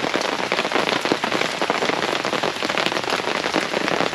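Heavy rain drumming on a fabric pop-up canopy overhead: a dense, steady patter of countless drops.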